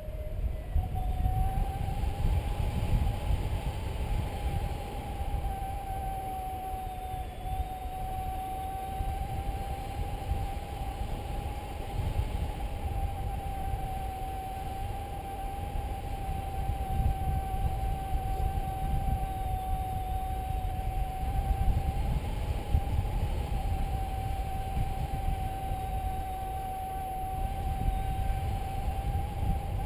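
Paragliding variometer sounding a steady electronic tone that drifts slightly up and down in pitch as the rate of climb or sink changes, over wind rumbling on the camera microphone.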